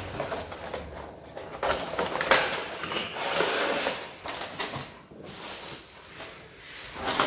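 Clear plastic blister packaging sliding out of a cardboard box and being handled: uneven bursts of scraping, rustling and crackling plastic, with sharp clicks.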